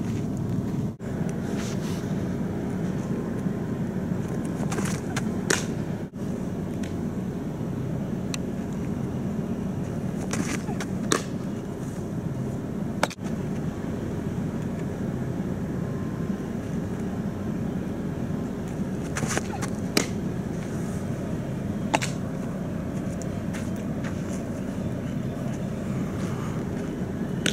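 A softball popping sharply into a catcher's mitt, a single smack or a pair half a second apart every few seconds, over a steady low outdoor rumble.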